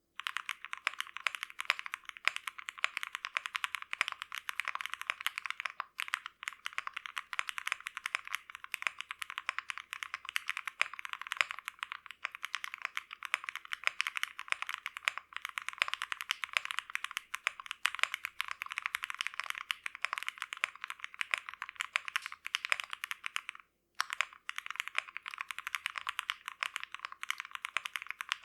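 Continuous fast typing on an OwLab Mr. Suit mechanical keyboard with lubed Gateron X switches, a POM plate, Cherry-profile keycaps and no case foam: a dense run of key clicks that stops briefly twice.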